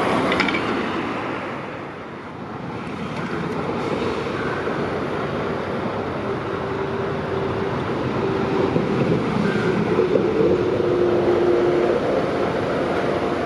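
Road traffic noise as a car passes under a concrete motorway bridge, then a heavy truck's diesel engine running as it rolls slowly beneath the overpass, with a steady drone coming in over the second half.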